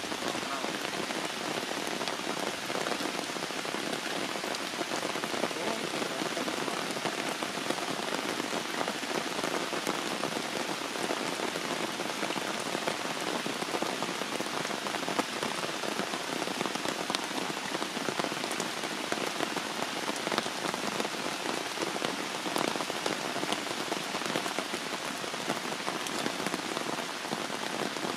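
Heavy rain falling steadily, a continuous hiss with small drop ticks scattered through it.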